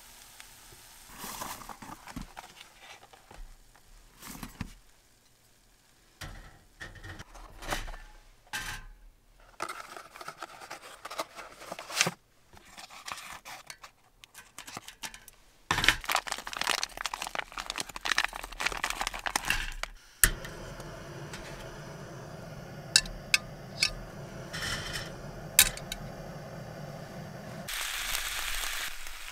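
Plastic food packaging being crinkled and torn open while marinated meat is handled with tongs, with scattered clicks of utensils. About two-thirds of the way in there is a sharp click, and then a steady frying hiss comes from the pan on the camping gas stove. A few sharp taps of metal on the pan cut through the hiss.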